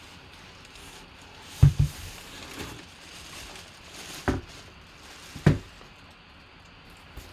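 Dull thumps and soft nylon rustling as a full-size football helmet in a drawstring bag is handled and set on a table: a quick double thump about a second and a half in, the loudest, then two single thumps a few seconds later.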